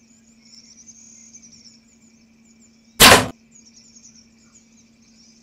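A single sharp thwack of a bow shot about three seconds in, the arrow loosed at a greater kudu. Faint steady high chirping runs underneath.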